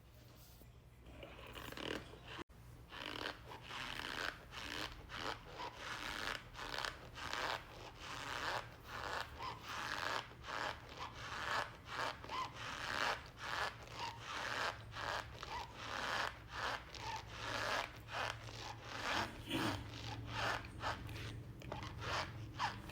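Cornstarch squeaking and crunching as it is squeezed and rubbed, in a long run of short, repeated strokes about one to two a second.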